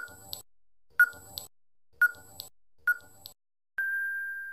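Quiz countdown-timer sound effect: a short electronic beep once a second, four times, each followed by a fainter click, then one long steady beep near the end as the time runs out.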